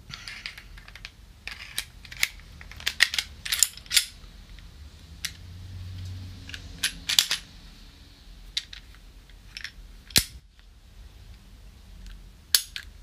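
Smith & Wesson M&P Shield 9mm pistol being reassembled by hand: the slide, with a DPM recoil spring assembly fitted, is worked back onto the frame in a series of sharp metallic clicks and clacks, with a crisper snap about ten seconds in as the parts lock together.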